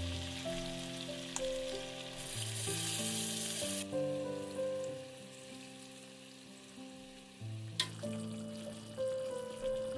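Food frying in oil in a pan, sizzling over melodic instrumental background music. The sizzle is loudest from about two to four seconds in and then drops away, and there is a single sharp click about eight seconds in.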